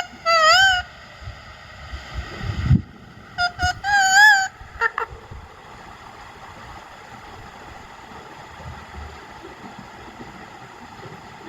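Indian ringneck parrot calling: a warbling, wavering call, then a few quick short notes and a second warbling call about three and a half seconds in, and a short falling note about five seconds in.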